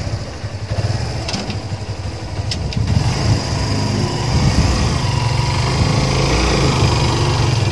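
A Kawasaki motorcycle's engine running as it pulls a loaded sidecar tricycle along a muddy dirt road, getting louder from about three seconds in.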